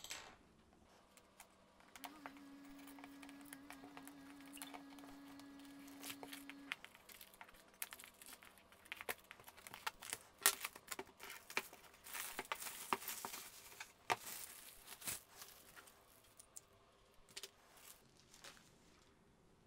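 Hobby knife slitting the plastic shrink-wrap on a cardboard kit box, with the film crinkling and tearing in irregular bursts of clicks and scratches, busiest around the middle. A faint steady low hum sounds for several seconds from about two seconds in.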